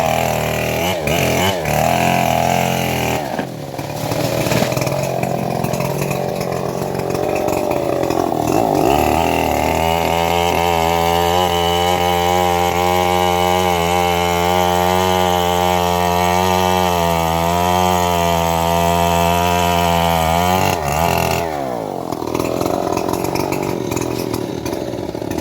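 Engine of a homemade band sawmill running. It wanders in pitch for the first ten seconds, holds a steady pitch for about eleven seconds, then drops at about 21 s and picks up again.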